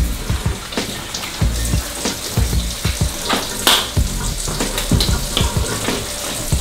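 Kitchen tap running into a stainless steel sink while gloved hands rinse squash and zucchini under the stream, with irregular splashes and knocks as the vegetables are turned and handled.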